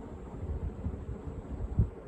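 Fasco Heat Cycler ceiling fan running at its top speed on freshly replaced bearings. The air thrown by its heavy plastic blades buffets the microphone as an uneven, gusty low rumble, with a stronger gust near the end.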